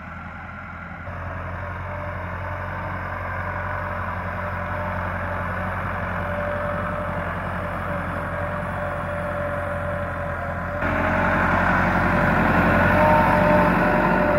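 Massey Ferguson 375 tractor's diesel engine running steadily under load as it pulls a rear leveling blade through dry soil. It gets louder and closer from about eleven seconds in.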